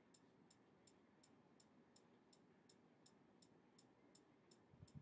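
Near silence with faint, even ticking, close to three ticks a second, and a soft low bump just before the end.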